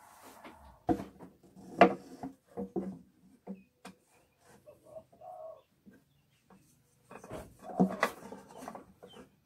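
Wooden clamping-jig battens and blocks being handled and set down on a guitar neck: a series of sharp wooden knocks and clatter. The loudest knock comes about two seconds in, and a denser cluster of knocks comes near the end.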